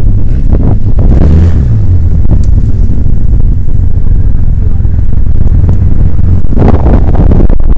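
Engines of off-road vehicles, sport quads and a side-by-side UTV, running loud with a heavy low rumble, growing louder briefly near the end.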